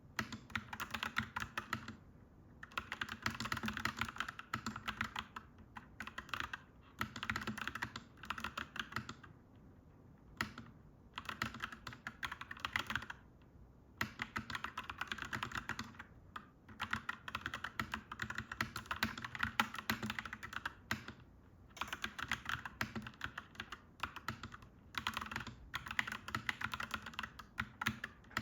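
Clacky mechanical keyboard being typed on in quick runs of keystrokes, with short pauses every few seconds.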